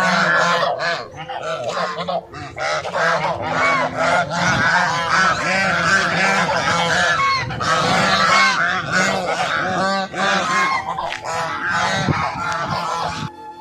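A large flock of birds calling noisily, many loud calls overlapping continuously; the calling cuts off suddenly near the end.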